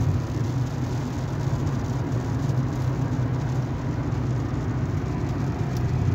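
Steady low drone of engine and tyre noise inside a Hyundai car's cabin, cruising at about 80 km/h with the engine near 2,000 rpm.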